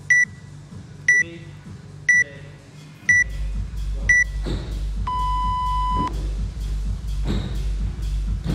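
Workout countdown timer beeping: five short high beeps a second apart, then one longer, lower beep about five seconds in, lasting about a second, to signal the start. Music with a steady beat comes in about three seconds in.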